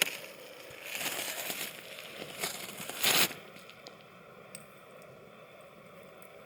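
Crusty snow crunching and scraping in a few rough bursts, the loudest about three seconds in, as snow is handled with a cooking pot. After that a faint steady hum remains.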